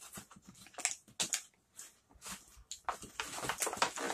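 Thin plastic packaging tray crinkling and clicking as small plastic toy pieces are pulled out of it. The clicks are irregular, sparse at first and thicker in the last second or so.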